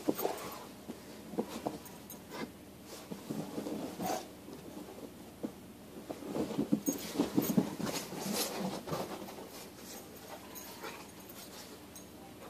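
Central Asian Shepherd Dog playing rough with a man in snow: scuffling, steps crunching in the snow and the dog's play sounds, a string of short irregular noises that is busiest from about six to nine seconds in.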